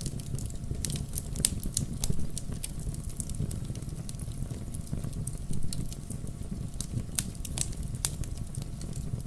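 Wood campfire crackling: frequent irregular sharp pops and snaps over a steady low rumble.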